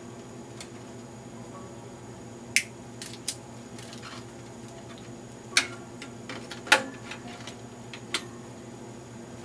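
Hand work on the internal parts of an audio console's computer rack: about half a dozen sharp clicks and small metallic clinks, spaced irregularly, over a steady low hum.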